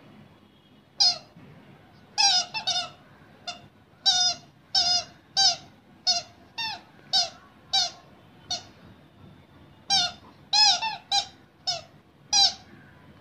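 A rubber squeaky ball toy squeaking as a puppy bites and chews it: about twenty short, sharp squeaks at irregular intervals, some in quick runs of two or three.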